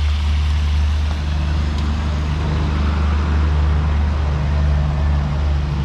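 Pigeon meat frying in a pan over a charcoal stove: a steady sizzle while it is stirred, over a loud, steady low rumble.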